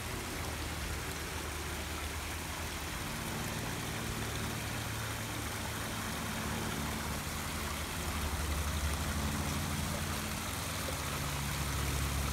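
Water from a small rock waterfall pouring into a garden fish pond, an even splashing rush that grows a little louder in the last few seconds. A steady low engine hum runs beneath it.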